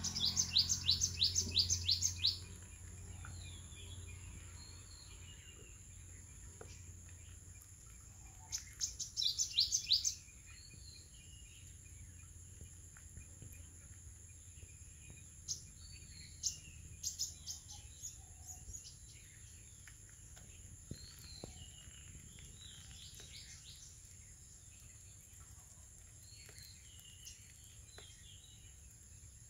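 Small birds chirping: a fast run of high chirps, about ten a second, at the start and again about nine seconds in, then scattered single calls.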